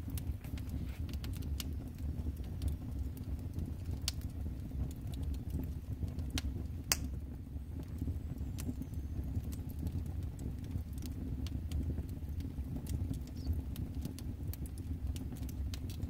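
Wood fire crackling in an open brick fireplace: irregular sharp pops and snaps, one louder pop about seven seconds in, over a steady low rumble.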